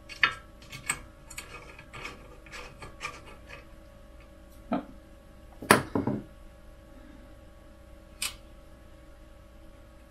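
Light metal clicks and taps from handling small M3 screws and a screwdriver at a 3D printer's bed plate: a quick run of them over the first few seconds, a knock near five seconds, a louder double knock about six seconds in, and one last click later.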